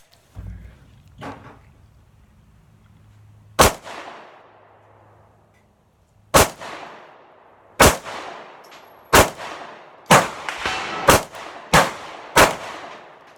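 Sig P365 9mm pistol firing a string of about eight shots, each with a ringing echo. The first shot comes a few seconds in, after a long gap the pace picks up, and the last five come in quick succession.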